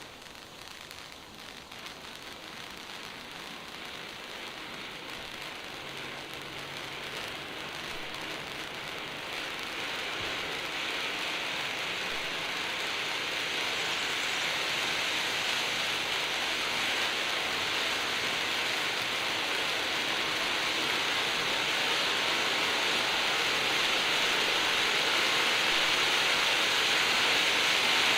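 Conic firework fountain burning: a steady spraying hiss that grows gradually louder throughout.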